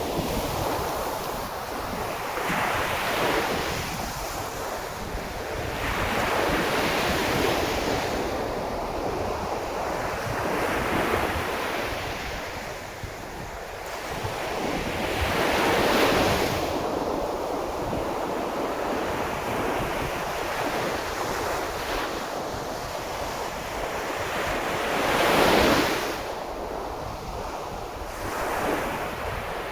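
Sea of Japan surf breaking on the shore, one wave after another every few seconds, each swelling into a rush of noise and falling away; the loudest break comes near the end.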